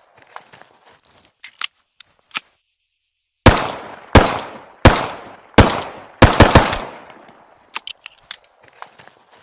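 M1911 pistol firing: after a few faint clicks, five loud shots roughly two-thirds of a second apart, the last run into a quick string of several more, each shot trailing off in an echo. Small scattered clicks follow near the end.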